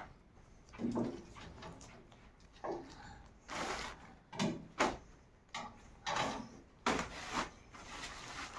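A dozen or so short knocks and scrapes at irregular intervals, with no steady sound between them: objects being handled or moved.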